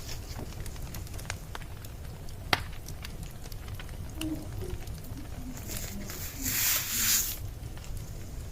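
Wood fire crackling with scattered small pops and one sharper pop about two and a half seconds in, over a steady low rumble; a louder hissing rush rises and fades from about six to seven seconds in.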